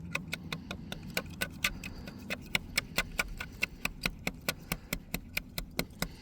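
Single-edge razor blade of a safety glass scraper scraping dried glue and spray paint off a mirror in quick short strokes: a rapid, even series of sharp scratching clicks, about five a second.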